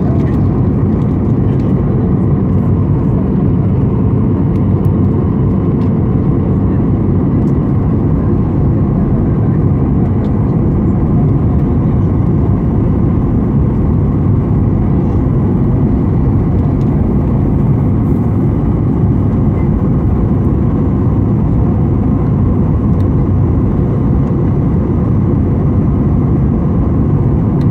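Steady cabin noise inside a Boeing 737-800 descending on final approach: its CFM56-7B turbofan engines and the rush of air, heard from a window seat beside the wing, with a faint steady whine over the deep, even noise.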